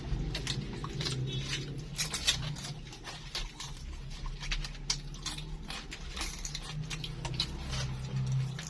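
Close-up chewing of crispy egg martabak in spring-roll wrappers: irregular sharp crunches as the crisp pastry edges are bitten and chewed.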